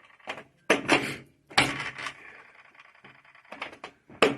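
Washing machine being handled for a test run: two sharp knocks about a second apart, then a faint steady hum.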